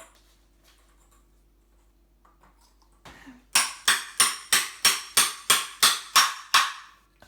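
A hammer striking a star nut setting tool about ten times, roughly three blows a second, each with a short metallic ring. This drives the star nut down into the mountain bike fork's steerer tube.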